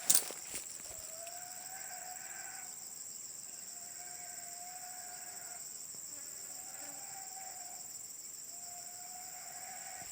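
Steady, high-pitched insect trilling, with a long, level, mid-pitched tone that sounds four times, each lasting about a second and a half, from an unidentified source: the strange sound of the oil palm plantation.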